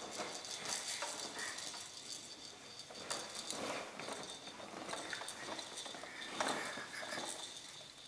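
Plastic wheels of a push-along baby walker rolling and clattering over a hardwood floor, with uneven clicks and knocks.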